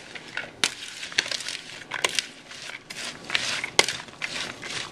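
Dressed shredded cabbage coleslaw being stirred in a glass bowl: wet, crunchy rustling, with a few sharp, irregular clicks of the metal spoon against the glass.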